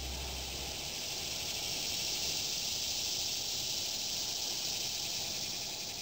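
Cicadas buzzing in a steady, high-pitched drone that swells and then fades out near the end. Low lingering notes of the song die away in the first second.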